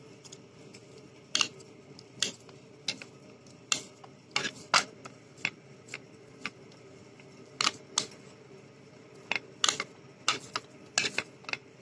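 Hands kneading mashed potato into a paste in a plastic bowl: irregular sharp clicks and soft knocks, one or two a second, as the hand presses and slaps the mash against the bowl.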